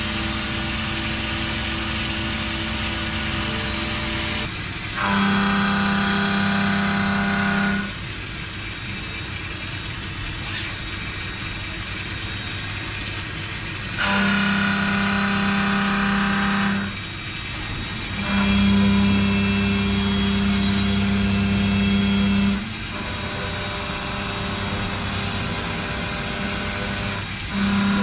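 Industrial machinery running with a steady motor hum and whine. The sound switches abruptly between louder and quieter steady passes every few seconds.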